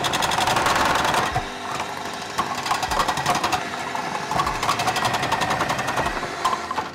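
Food processor motor running with its thinnest slicing disc cutting potatoes into slices about 3 mm thick, a fast, even rattle that is loudest in the first second or so. The machine stops right at the end.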